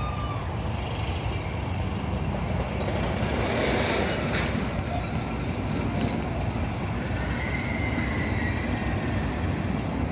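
Steady rumble of heavy vehicles or construction machinery running, with faint thin whining tones over it in the second half.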